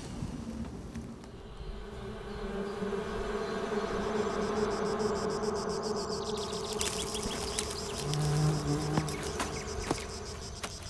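A flying insect buzzing with a steady hum. About two-thirds of the way in, crickets join with rapid high pulsing chirps.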